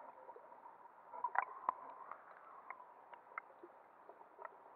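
Underwater ambience heard through an action camera's waterproof housing: a faint, muffled hiss with a steady faint hum. Scattered soft clicks and ticks come at irregular intervals, a cluster of them about a second and a half in.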